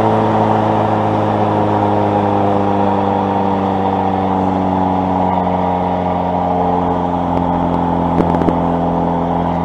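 Aerobatic biplane's piston engine and propeller heard from inside the cockpit: a steady drone with rushing air, its pitch sagging slightly over the first several seconds and then holding. There are two small knocks near the end.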